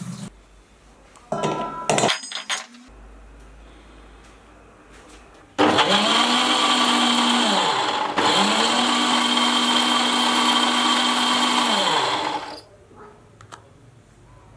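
Electric mixer grinder grinding chopped beetroot, run in two bursts of about two and a half and four seconds, the motor spinning up and winding down each time. A short clatter comes before, about a second and a half in.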